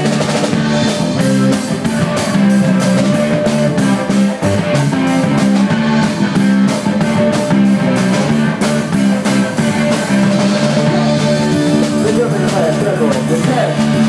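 Live rock band playing loudly, with guitar and a steady drum beat.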